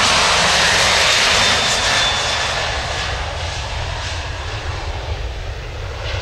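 Boeing 737-900ER's twin CFM56-7B turbofans at takeoff thrust: a loud, steady jet noise as the airliner rolls down the runway and lifts off. Loudest for about the first two seconds, then fading steadily as it pulls away.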